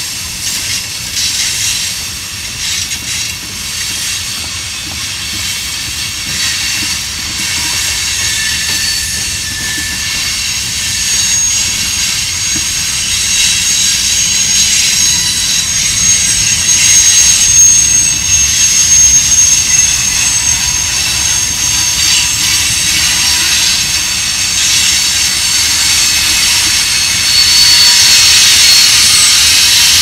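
Freight train's tank cars and covered hoppers rolling past, steel wheels on rail with a steady rumble and thin high-pitched wheel squeal over it. The sound grows louder toward the end.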